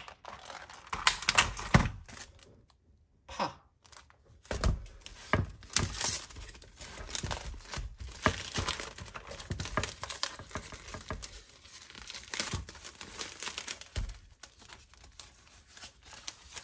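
Plastic food packaging crinkling and rustling as ingredients are handled and unpacked, with irregular sharp clicks and knocks. A short lull comes about three seconds in.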